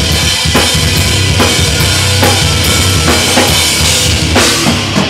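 Metalcore band playing live at full volume: drum kit with bass drum and snare, distorted electric guitar and bass guitar, with heavy drum hits about twice a second.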